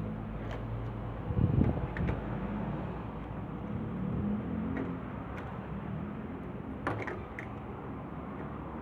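Scattered clicks and knocks of a washing machine's water level sensor being handled and fitted, the loudest a brief clatter about a second and a half in and sharp ticks near the end, over steady background noise.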